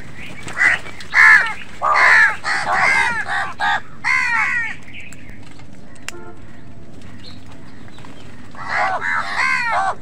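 A flock of house crows cawing: harsh, overlapping caws in a run of about four seconds, a pause, then another burst near the end.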